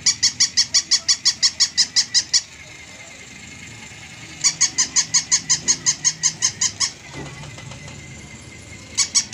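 Pink plush battery-powered walking dog toy giving rapid high electronic yips, about six a second, in two runs of about two and a half seconds each, with a third run starting near the end.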